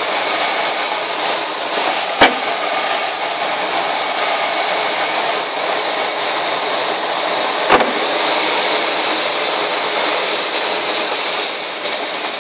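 Steady rush of airflow past the closed canopy of a Schleicher ASK 21 two-seat glider in gliding flight, with two sharp clicks, about two seconds in and again near eight seconds.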